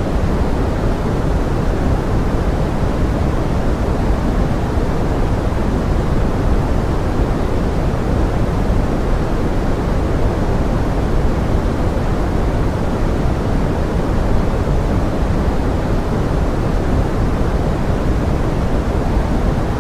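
Steady pink noise mixed as forest rain: an even, unbroken hiss, heaviest in the low end, with no separate drops or changes.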